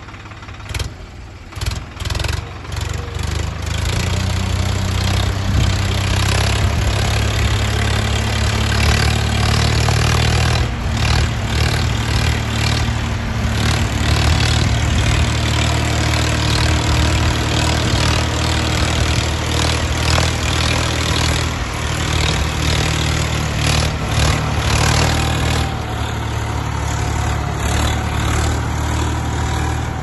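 Swaraj 963 FE tractor's three-cylinder diesel engine running steadily under load while pulling a two-bottom reversible mouldboard plough through soil. In the first three seconds a few sharp knocks sound as the engine noise swells up.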